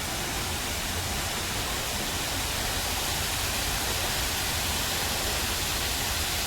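Steady rush of water cascading down the stepped walls of a large terraced fountain.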